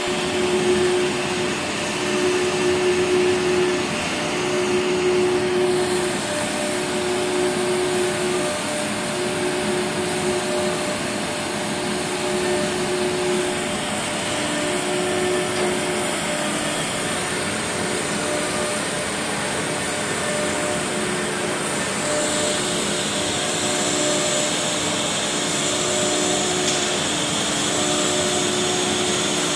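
Four-spindle CNC wood router running over a steady rushing noise, with short stretches of hum that keep starting and stopping. About two-thirds of the way through the sound grows brighter as a spindle cuts into the MDF cabinet panel.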